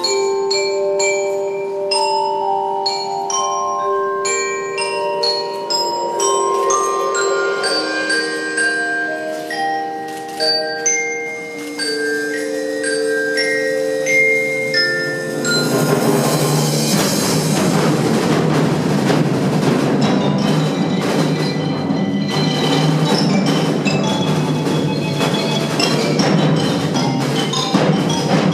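Ensemble music on tuned mallet percussion, a melody of separate ringing notes. About halfway through the full ensemble comes in, and the sound turns dense, with a crash and a noisy wash of percussion under the notes.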